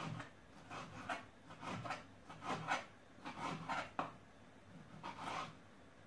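Kitchen knife cutting bacon into cubes on a wooden chopping board: irregular slicing strokes and knocks of the blade on the wood, with one sharper knock about four seconds in.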